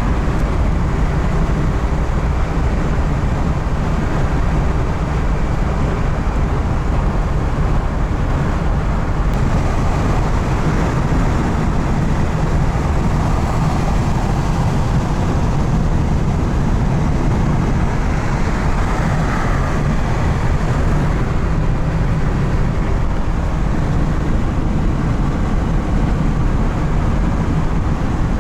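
Steady, loud road noise of a vehicle being driven: a continuous rush of tyres and engine with no break.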